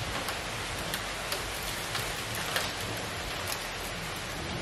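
Hailstorm: a steady hiss of hail and rain pelting down, with scattered sharp ticks of individual hailstones striking.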